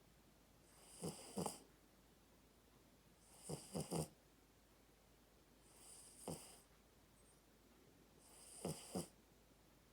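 A sleeping puppy snoring softly: four snoring breaths about two and a half seconds apart, each a short fluttering snore of two or three quick pulses with a faint hiss.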